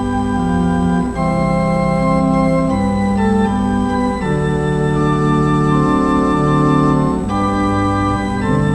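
Organ playing the offertory: slow held chords that change every second or so.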